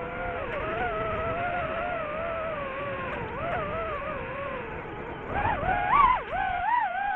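DJI FPV drone's propeller motors whining, the pitch wavering with throttle; about five seconds in it swoops up and down and grows louder in quick throttle bursts.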